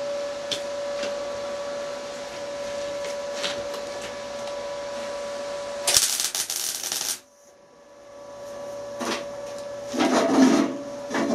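A steady hum, then about six seconds in a welder strikes a tack weld on steel: a crackling buzz lasting just over a second that cuts off sharply. Near the end come a few knocks and scrapes on the steel.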